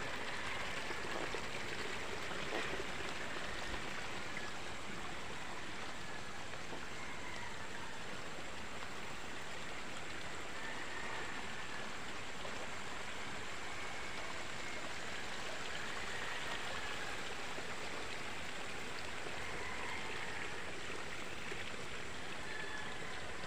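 Steady rushing of flowing water, like a stream or rain runoff, with no break in it.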